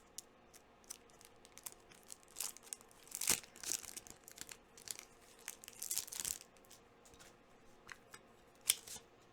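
Trading-card packs being torn open and handled: a run of light rustles, wrapper crinkling and card scrapes, busiest around three to four seconds and six seconds in, with one sharp click near the end.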